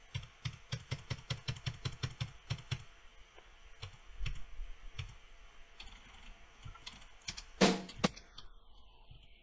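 Computer keyboard keys pressed in quick succession, clicking about four to five times a second for the first three seconds, then more sparsely. It is most likely the Tab key stepping from note to note in Reaper. One louder thump comes about seven and a half seconds in.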